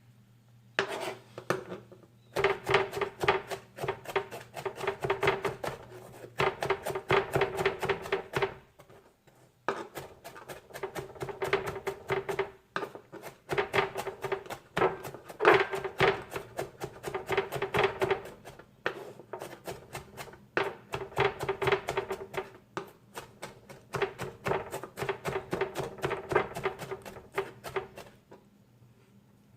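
Knife chopping rapidly on a cutting board in runs of a few seconds with short pauses between them, each run a fast patter of sharp strikes with a slight ringing tone.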